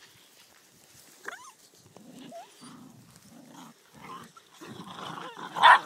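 Whippet puppies play-fighting, with a run of short low growls and one loud short cry near the end.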